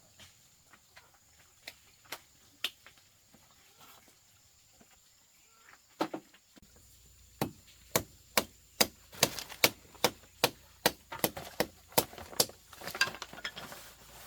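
A knife chopping into cassava roots: a few scattered knocks, then from about halfway a quick, steady run of sharp chops, two or three a second.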